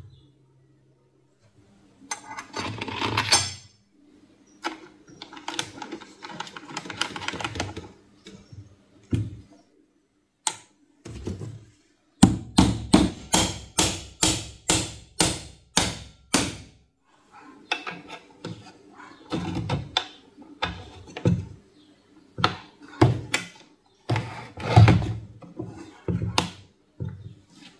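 Hand work on hard parts: irregular knocks and short scraping or rustling bursts, then a steady run of about a dozen sharp taps at roughly two to three a second, then more scattered knocks.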